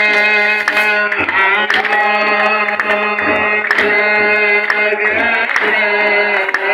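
A chorus of Ethiopian Orthodox clergy (debteras) chanting a liturgical hymn in unison, with long held notes, while a kebero drum beats an uneven rhythm underneath. Sharp strokes also cut through the chant.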